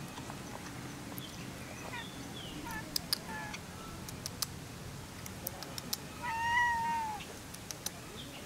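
A black cat gives one long meow about six seconds in, in a slightly husky voice, as a greeting.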